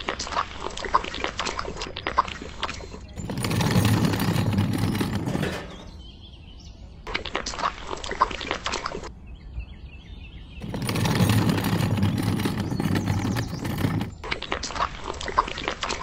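Handling noise of a small metal scoop and wet miniature concrete: scrapes, clicks and wet slaps as the mix is scooped and poured. The sound comes in short segments that change abruptly several times.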